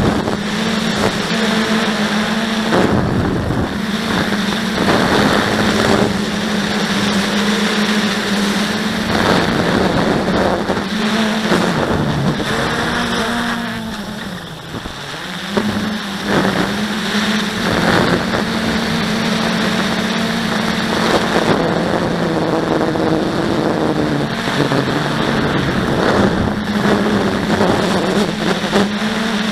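Blade 350 QX quadcopter's brushless motors and propellers buzzing steadily, heard from the onboard camera riding on the aircraft. Near the middle the buzz dips in pitch and loudness for a second or two, then comes back up.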